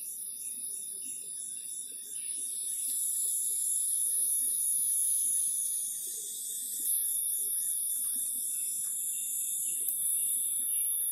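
Steady, high-pitched buzzing drone, pulsing about three times a second at first, growing louder about two seconds in and shifting again near the middle.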